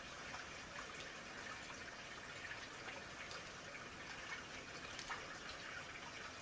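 Faint steady hiss of room background noise with a few soft clicks.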